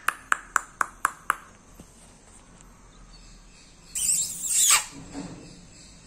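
Pet green parakeet making a quick run of sharp, ringing clicks, about four a second, through the first second and a half, then a loud noisy screech about four seconds in.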